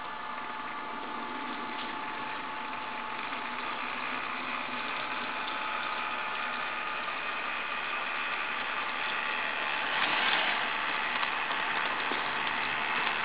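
HO-scale model diesel locomotive running through a double crossover: its small electric motor and gearing whine steadily along with wheel-on-rail rattle, slowly growing louder and loudest about ten seconds in. It runs smoothly through the crossover.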